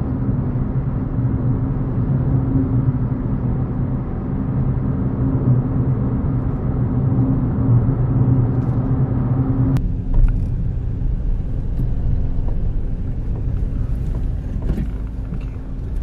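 Inside a moving car: a steady drone of engine and road noise at speed. About ten seconds in it drops abruptly to a lower, softer rumble.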